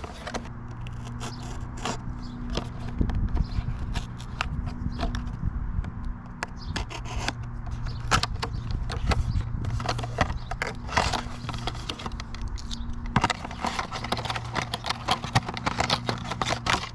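Hands handling a motorcycle GPS power cable and its parts: irregular clicks, scrapes and crackles. A low steady hum runs underneath and cuts out briefly twice.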